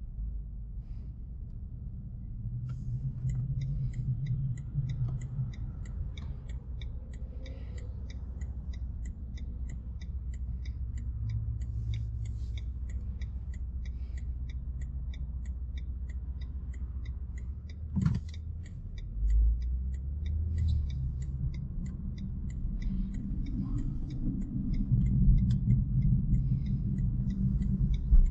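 Steady low road and tyre rumble inside the cabin of a BMW i3 electric car driving at speed. Over it runs a light, regular ticking of about three ticks a second, and there is a single sharp click about two-thirds of the way through.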